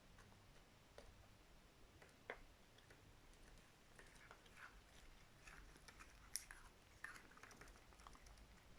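Faint chewing and nibbling from a pet eating: a scatter of small crunches and clicks, thickest in the second half.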